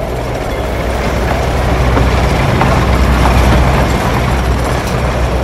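Added ambient soundtrack: a dense, low rumbling noise that swells to its loudest about three and a half seconds in, then eases off.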